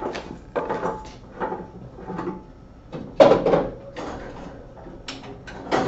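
Plastic brewing equipment being handled on a wire storage rack: a string of knocks and clatters, the loudest about three seconds in and another near the end.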